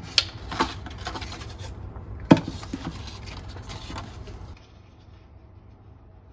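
Bose Frames Tempo sunglasses being handled: a series of clicks and rubbing from the plastic frame and hinges, with one sharp click a little over two seconds in, then quieter after about four and a half seconds.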